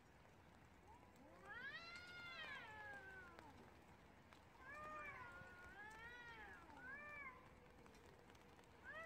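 Two stray cats in a fight standoff, yowling at each other. There is one long rising-and-falling wail about a second and a half in, then a string of shorter yowls, with another starting near the end. The yowls are faint over a steady hiss of rain.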